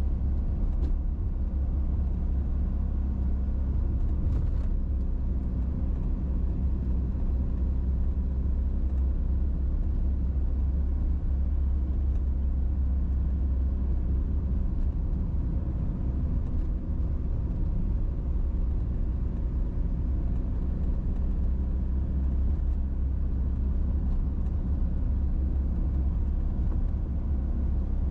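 Steady low rumble of road and wind noise from a vehicle driving along an asphalt road, picked up by a camera mounted on the vehicle.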